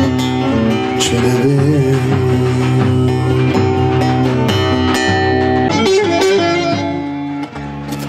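Amplified bağlama (long-necked Turkish saz) played through a PA, a fast-picked folk melody over a darbuka beat; the playing breaks off briefly near the end.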